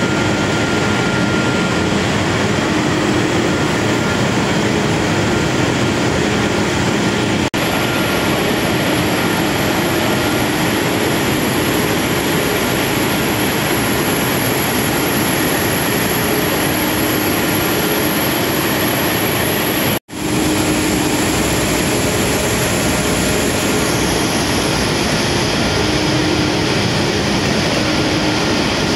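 Loud, steady running noise of an aluminium can production line: machinery and conveyors moving cans, with a few faint steady tones in it. It breaks off for an instant twice, about a quarter of the way through and again about two-thirds through.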